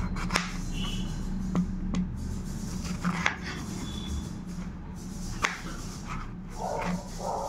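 Knife cutting through raw bottle gourd on a plastic cutting board, with a few sharp knocks as the blade meets the board.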